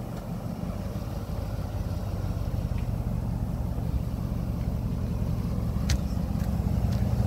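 Nissan Armada's V8 engine idling with a steady low hum, growing louder as the microphone comes closer to it.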